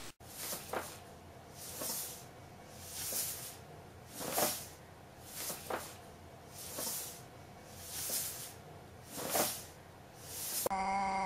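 A paper shopping bag rustling and crinkling in short bursts about once a second as a cat moves around inside it. Near the end a cat's drawn-out yowl begins.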